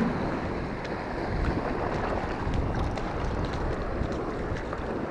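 Sea waves washing over a rocky shore, with wind rumbling on the microphone.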